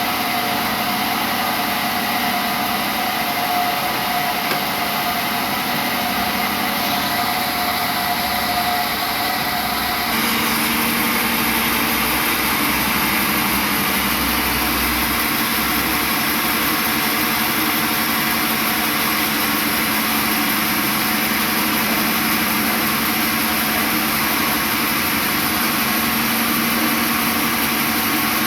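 Sawmill machinery running steadily with a continuous engine-like hum and hiss. About ten seconds in the sound changes abruptly, turning brighter and slightly louder.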